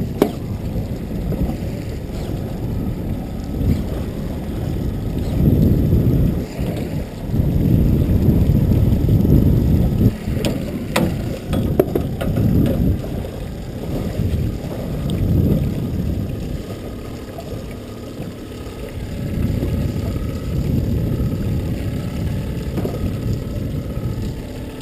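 Wind buffeting the microphone in uneven gusts over choppy water beside a small boat, with a few sharp clicks about ten to twelve seconds in.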